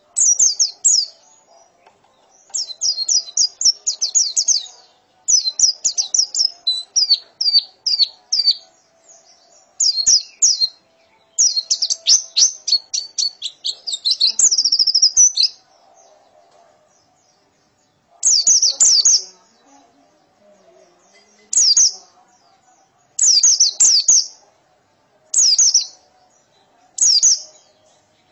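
White-eye (pleci) singing its fast chattering song: rapid runs of high, down-sweeping chirps in phrases of one to three seconds. The runs are long and close together in the first half, then come as shorter bursts every couple of seconds. A faint steady hum lies underneath.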